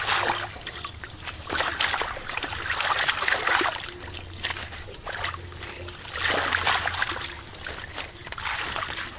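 Shallow water splashing and trickling as hands rummage through a push net and lift dripping weed out of it, in irregular splashes every second or so.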